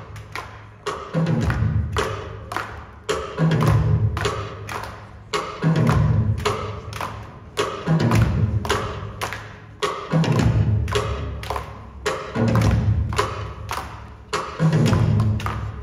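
Instrumental break of a stage-musical song: a driving percussion beat with a heavy low drum hit about every two and a quarter seconds and sharp knocks in between.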